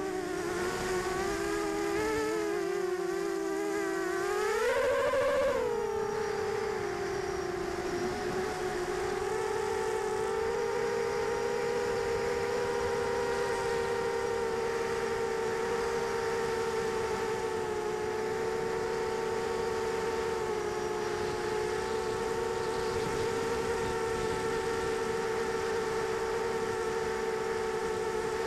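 Brushless motors and propellers of a 250-size quadcopter whining, heard from its onboard camera. The pitch wavers and rises briefly about five seconds in as the throttle changes, then holds steady for the rest of the flight.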